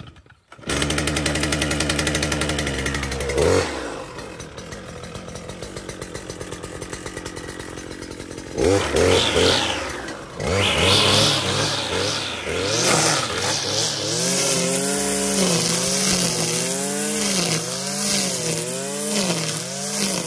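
Stihl FS 460 C brushcutter's two-stroke engine starting and catching within the first second. It runs at a fast idle, then drops to idle about three and a half seconds in. About eight and a half seconds in it revs up and cuts tall grass with 3.3 mm trimmer line, the engine speed rising and falling repeatedly with the load.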